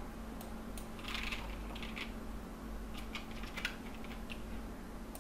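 Computer keyboard typing: a few short runs of key clicks, with a faint steady hum underneath.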